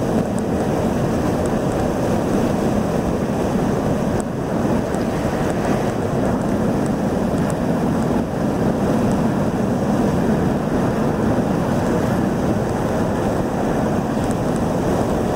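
Steady road and wind noise inside a car cabin at highway speed.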